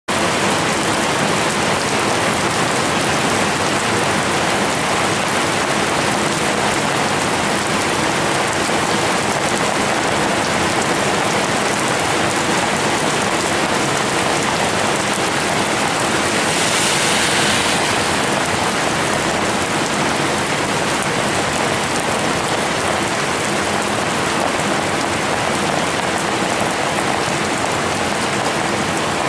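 Steady rain falling, an even hiss, with a brief louder, higher hiss about seventeen seconds in.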